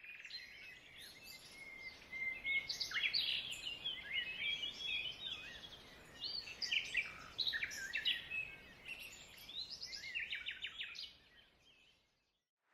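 Small songbirds chirping and trilling over one another in a busy chorus, which fades out shortly before the end.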